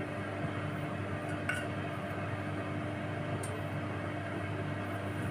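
Faint soft clinks, twice, of a steel bowl against a cut-glass bowl as ghee is scraped out of it by hand, over a steady low hum.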